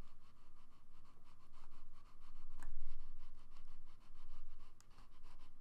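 Scratchy rubbing strokes of a computer pointing device sliding back and forth across its pad, in several swells of about a second each, with a single sharper click about two and a half seconds in.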